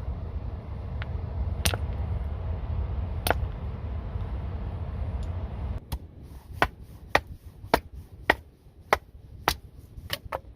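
Small chunks of wood being split into kindling with repeated sharp, dry wooden strikes. A few strikes come spaced out over a steady low rumble at first. From about six seconds in, the rumble drops away and the strikes come quicker and evenly, close to two a second.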